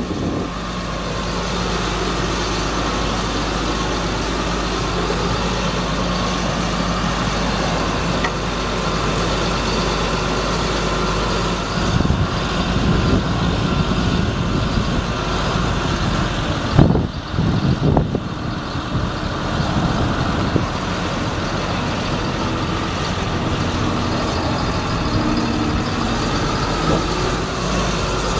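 Ford F750 truck's engine running steadily to drive the Terex Commander digger derrick's hydraulics while the boom is lowered. The sound shifts partway through, and a brief loud thump comes a little past the middle.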